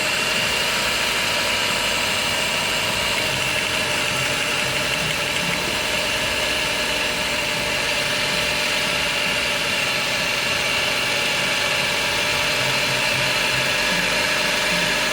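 Toyota Passo petrol engine idling steadily.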